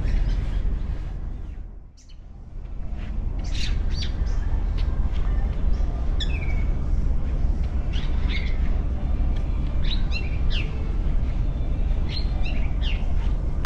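Small birds chirping, with many short, sharp calls that drop in pitch, starting a few seconds in and repeating through the rest. Beneath them is a steady low rumble, which briefly fades out about two seconds in.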